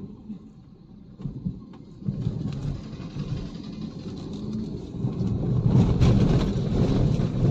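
Car driving, its engine and road rumble heard from inside the cabin, getting louder about two seconds in and again around five seconds.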